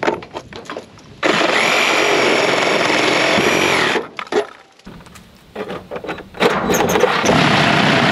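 DeWalt cordless reciprocating saw with a metal-cutting blade sawing through the heavy nails that hold an old metal gutter, in two runs of about three seconds each with a steady high motor whine. Knocks and clicks of the saw and metal sound in the pause between the cuts.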